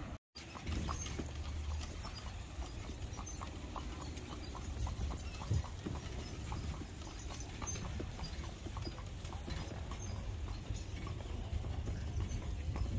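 Hooves of a carriage horse, a Welsh pony crossed with Standardbred, clip-clopping at a steady walk on a paved street as it pulls an open carriage, over a low steady rumble. The sound drops out for a moment at the very start.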